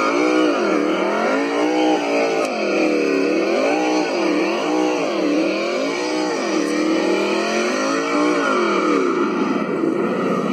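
R/C monster truck's motor and drivetrain whining as the throttle is worked while it spins through snow. The pitch rises and falls about seven times, then levels out near the end.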